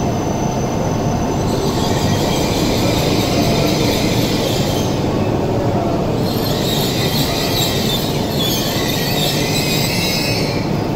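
E6 series Shinkansen train moving slowly alongside the platform. A steady rumble of its running gear is joined by hissing wheel noise that swells about a second and a half in and again from around six seconds.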